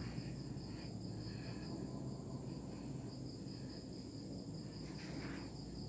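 Faint, steady high-pitched insect chirping, a rapid even pulsing trill, over a low background hum.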